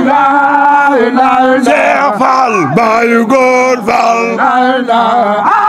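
Male kourel group chanting a zikr in Baye Fall style, several men's voices together: long held notes that bend and slide down between phrases.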